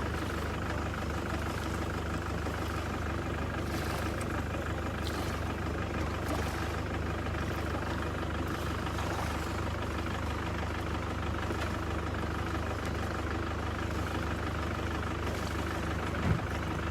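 Steady engine drone, running at an even idle with a constant low hum, and a brief low thump near the end.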